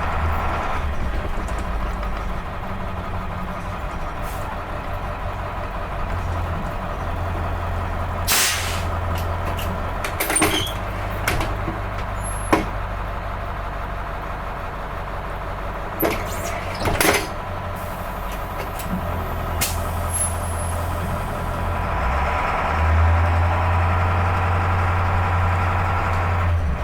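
School bus diesel engine running steadily, broken by several short sharp bursts of noise through the middle.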